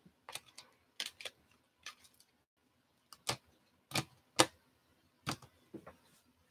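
Clear hard plastic trading-card cases clacking against each other and the playmat as a stack is picked up and sorted, giving about nine sharp, irregular clicks.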